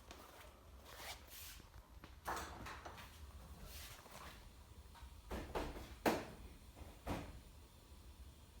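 A handful of faint, separate knocks and clicks, like things being handled or moved.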